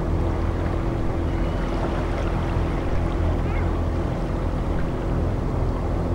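Dark ambient sea soundscape: a steady low drone of several held deep tones under an even, rushing wash of sea-like noise, unchanging throughout.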